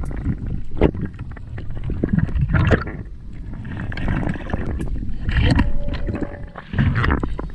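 Water rushing and gurgling against a speargun-mounted camera as a spearfisher dives underwater: irregular surges of rumbling water noise with a few sharp clicks.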